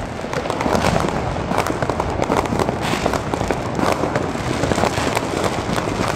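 Fireworks and firecrackers going off nonstop: a dense crackle of many small bangs overlapping, with no pause.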